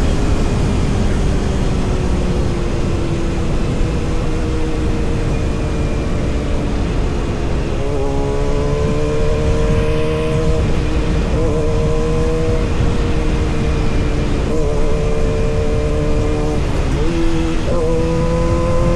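Kawasaki ZX-6R's inline-four engine running over a dense rush of steady noise. Its note sinks slowly at first, then from about eight seconds in sits higher and wavers, dipping and rising several times.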